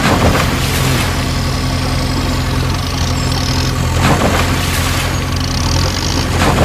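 Steady low heavy-engine idling hum, an engine sound effect laid over toy-vehicle play. Short rushing noises come at the start, about four seconds in, and near the end.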